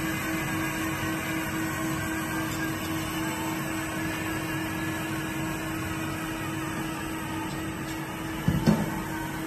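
Electric hydraulic pumps and cooling fans of a 1/20-scale Liebherr RC hydraulic excavator running, a steady motor hum with a faint whine. A short knock comes near the end.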